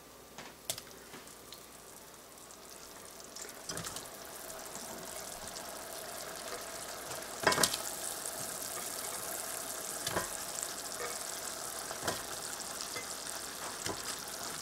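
Hot sugar syrup bubbling and sizzling in a stainless steel saucepan as freshly fried gulab jamun go into it, with a few sharp clicks and knocks. The sizzle grows louder about four seconds in, and the loudest knock comes about halfway through.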